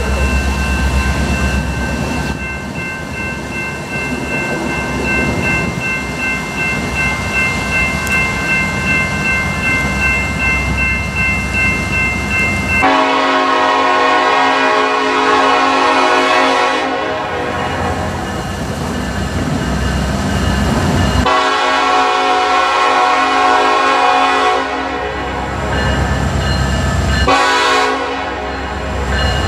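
Grade-crossing bell ringing steadily over the low rumble of an approaching freight train; from about halfway in, the lead diesel locomotive's air horn sounds a series of long blasts for the crossing.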